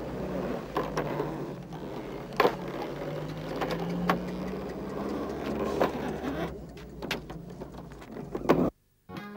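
Camel-driven wooden mortar-and-pestle mill grinding millet seed for oil: a low, wavering grinding sound with occasional sharp knocks. It cuts off suddenly near the end.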